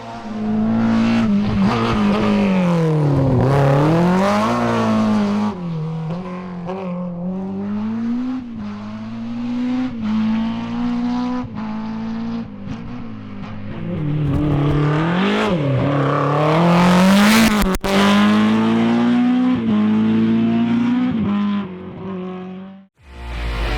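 Group A BMW M3 E30 rally car's four-cylinder engine driven hard on a stage. The revs climb and fall repeatedly through gear changes and braking, and the sound cuts off abruptly just before the end.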